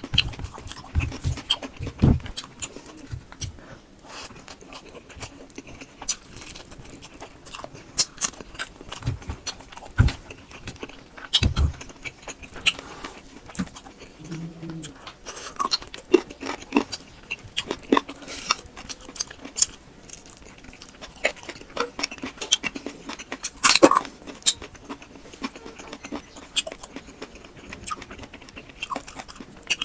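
Close-miked eating sounds: a person chewing with irregular wet mouth clicks and smacks.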